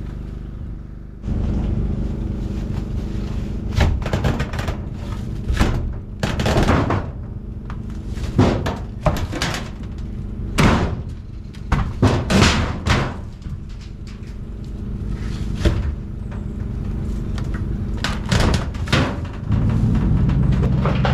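Repeated knocks and bangs over a small engine running steadily. The engine's hum comes in about a second in.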